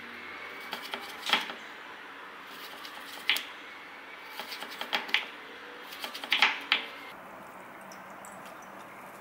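Chef's knife cutting raw sweet potato into sticks on a wooden cutting board: short crunching cuts ending in knocks on the board, one about a second in, one about three seconds in, and a quicker run of them between about four and a half and seven seconds.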